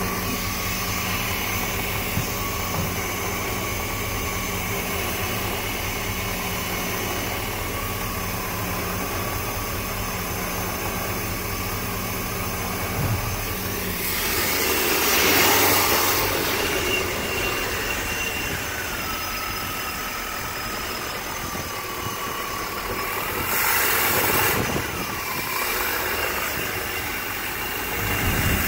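A 350 small block Chevy V8 in a bus, running steadily at idle, heard from inside the bus. In the second half, louder noisy surges come in around the middle, again about two-thirds through, and near the end.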